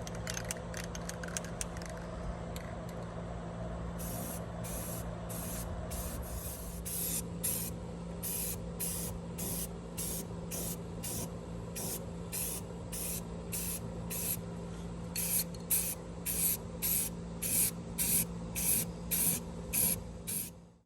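Blue enamel paint being sprayed onto an old New Holland tractor: a run of short hissing bursts, about one and a half a second, from a few seconds in until near the end. A steady low hum sounds underneath throughout.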